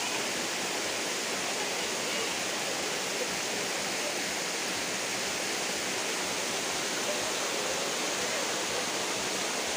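Waterfall and rocky stream: a steady, even rush of falling and running water.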